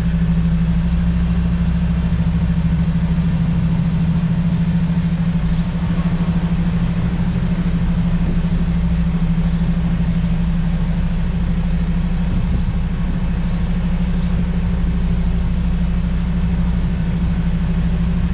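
Mercedes-Benz Actros semi-truck's diesel engine running at a low, steady speed as the truck creeps forward, heard from inside the cab as a steady low hum.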